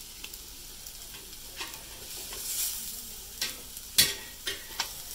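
Pork chops sizzling with a steady hiss on the grill plate of an electric smokeless grill as they are turned over with tongs. There are several sharp clicks of the tongs against the grill, the loudest about four seconds in.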